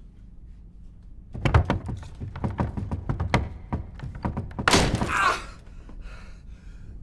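Irregular hollow thunks and knocks of a man shut inside a wooden wine cask, bumping and pushing against its staves. A louder rustling rush comes about five seconds in.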